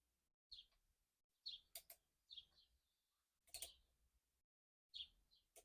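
Faint bird chirps repeating about once a second, with a few short sharp clicks in between.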